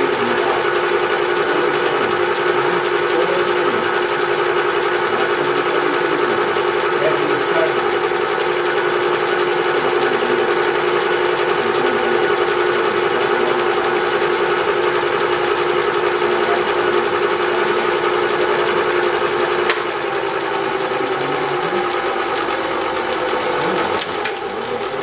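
Bridgeport vertical milling machine running steadily, its end mill cutting the base of a shaper feed nut held in the vise. About twenty seconds in there is a click and the tone of the machine changes slightly, and a couple more clicks come near the end.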